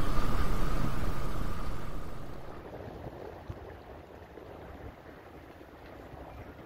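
Steady rushing noise with a faint high whine, fading down about two seconds in to a much quieter, even outdoor background.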